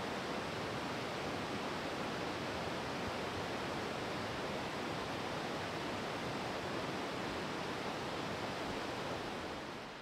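Steady rushing of flowing water from a river or creek, an even hiss with no distinct events, dropping a little in level just before the end.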